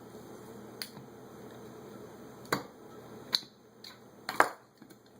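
About five sharp, separate clicks and small metal clinks, the loudest near the end, as the parts of a Holley carburetor and hand tools are handled during its disassembly.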